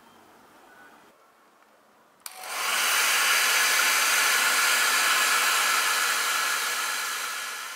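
Hair dryer switched on with a click about two seconds in, then running steadily, tailing off near the end.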